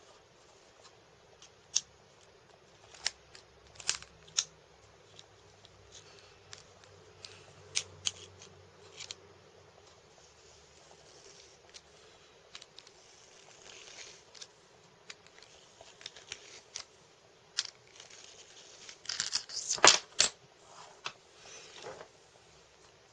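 Scattered small, sharp clicks and scrapes from handling a wristwatch during a battery change, with a dense flurry of louder clicks near the end.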